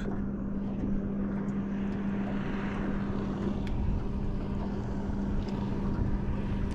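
Electric bow-mount trolling motor running with a steady hum, with a few faint clicks over it.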